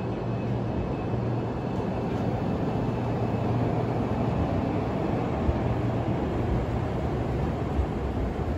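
Trenitalia Blues hybrid multiple unit (Hitachi) pulling out of a station, a steady low rumble as its cars roll past.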